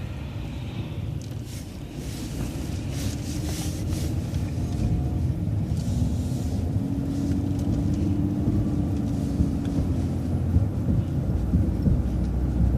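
Rumble of an MCO ViewMaster bus heard from inside the cabin as it pulls away through a right turn, growing louder as it picks up speed, with a rising drivetrain whine from about six to ten seconds in and occasional rattles.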